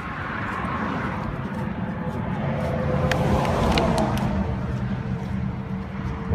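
A motor vehicle driving past, its engine and tyre noise swelling to a peak about four seconds in and then fading as its pitch dips slightly.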